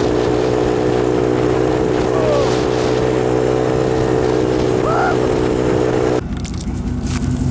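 Vehicle engine running at a steady speed. About six seconds in, it switches abruptly to a different, lower engine note.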